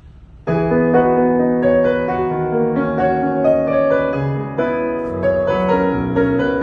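Roland HP 207 digital piano being played: sustained chords over a bass line, starting about half a second in.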